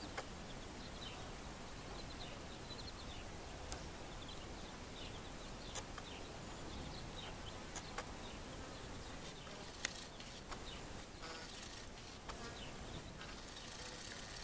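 Young chicks peeping, with short high cheeps scattered throughout over a steady background hiss, and a few sharp clicks.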